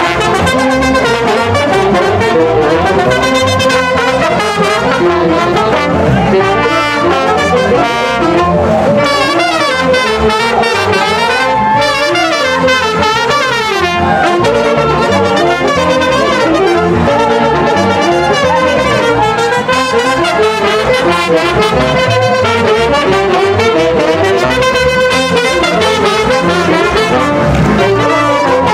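Brass band playing lively dance music, with trumpets and trombones over a steady beat.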